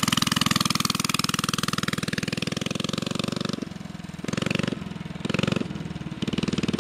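Mini bike's small single-cylinder engine running under throttle. It is held steady for the first few seconds, eases off about halfway, then takes two short blips of gas before settling again.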